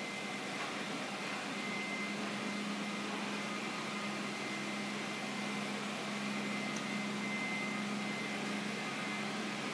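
HP Indigo 5000 digital printing press running: a steady machine whir and hum with a faint high whine over it.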